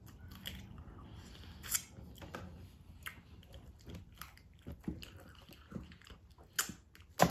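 Close-up eating sounds of a person biting and chewing fried chicken: scattered crunches and wet mouth clicks, with one sharper, louder click near the end.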